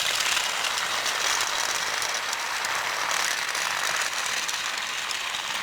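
Two battery-powered Thomas and the Jet Engine toy trains, a Tomy/Trackmaster and a Trackmaster Revolution, running side by side: a steady high whirring of their small motors and gears.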